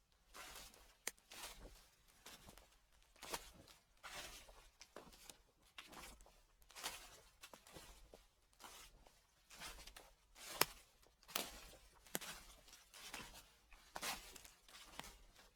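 Footsteps crunching through dry fallen leaves at an even walking pace, about one crackling step every 0.7 seconds, with one sharper crack about ten and a half seconds in.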